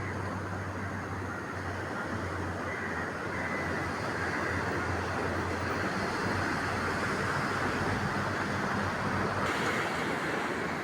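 Sea surf and wind making a steady rushing noise, with a steady low hum underneath that comes and goes.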